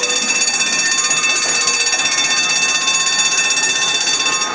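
Electric crossbench tramcar under way, giving a steady high whine made of several held tones, like a buzzer, which cuts off abruptly at the very end.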